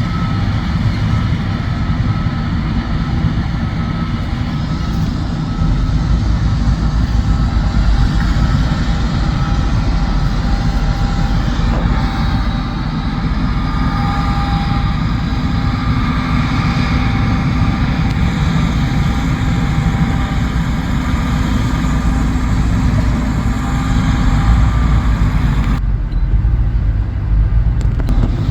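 John Deere S780 combine harvester running while harvesting wheat: a steady, heavy engine drone with faint whining tones above it. Near the end the higher sounds drop away suddenly.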